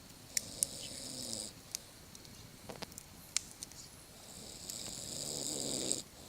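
A sleeping man snoring: two long snores, the second longer and louder and cutting off abruptly. Sharp pops of a crackling campfire come between them.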